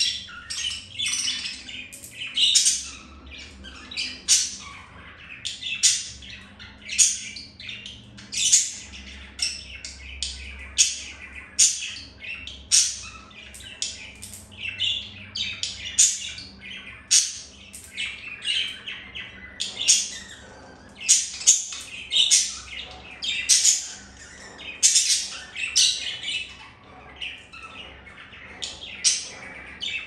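Budgerigars chirping and chattering: a steady run of short, sharp, high calls about one a second, some louder and harsher than others.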